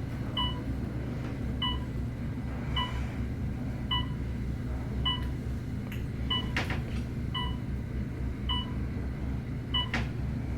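An elevator cab's electronic beeper sounding a short beep about every 1.2 seconds inside an Otis Series 4 traction elevator, over the cab's steady low hum, with a couple of sharp clicks in the second half.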